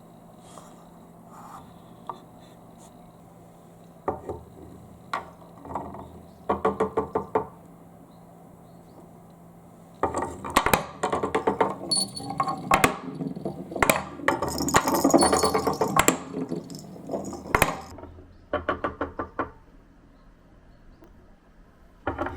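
Marbles rolling and clattering along a marble-run course: short trains of quick clicks at first, then a dense clatter of many balls from about ten seconds in until about eighteen seconds, thinning to a few clicks afterwards. A faint steady hum lies underneath.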